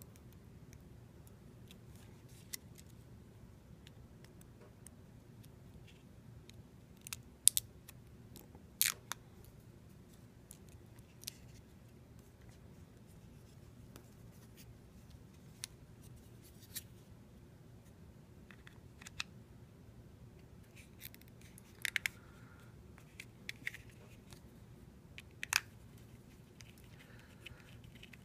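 Scattered small clicks and taps of the plastic case and parts of a Mobius dashcam being handled and fitted together by hand, a few of them much sharper than the rest, over a faint steady low hum.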